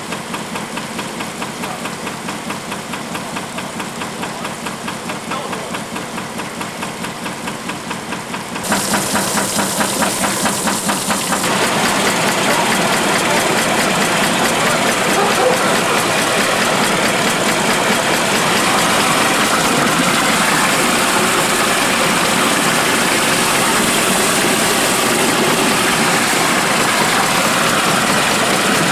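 Shaking table running, its reciprocating head drive giving a rhythmic knocking, several strokes a second. About nine seconds in this cuts to a louder, steady machine run from a motor-driven slurry agitation tank.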